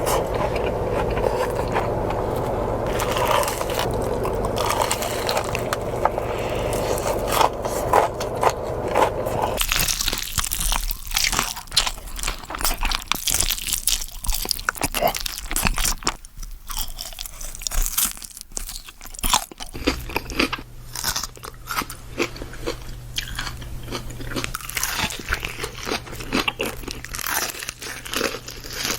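Crispy fried chicken being bitten and chewed: many sharp crunches in quick, irregular succession. A steady low hum sits under the crunching for about the first ten seconds and again from about twenty seconds in.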